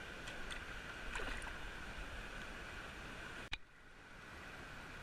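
Steady rush of river water, with a few faint ticks. About three and a half seconds in there is a sharp click, and after it the background is quieter.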